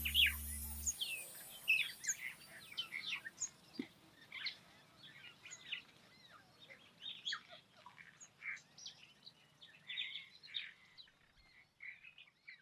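Birds chirping outdoors, a scatter of many short, high calls that thin out toward the end. Background music cuts off about a second in.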